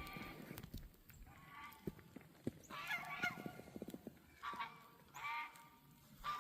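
Domestic goose honking: a series of about five short honks, roughly a second apart.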